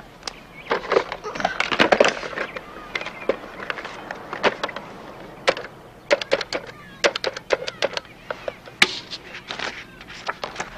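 Rotary-dial desk telephone being handled and dialled: knocks of the handset, then quick runs of clicks as the dial is wound and spins back for each digit.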